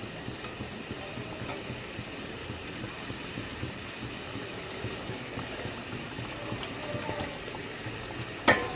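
Fish-curry gravy simmering in a steel kadai, a steady low bubbling. A single sharp click or knock comes near the end.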